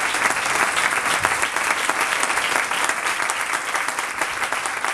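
Audience applauding steadily, a dense patter of many hands clapping in a large hall, at the close of a speech.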